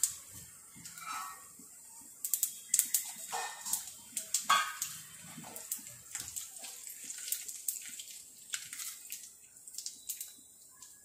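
Cumin seeds, dry red chillies, bay leaf and curry leaves sizzling and crackling in hot oil in a nonstick kadai as the tempering for a curry, with irregular sharp pops over a steady hiss that grow denser about two seconds in.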